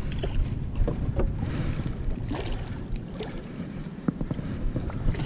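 Hobie kayak moving across the water: steady low wind rumble on the microphone and water along the hull, with a few small scattered knocks and clicks.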